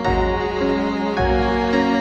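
Instrumental music: sustained chords over a deep bass note that changes about once a second.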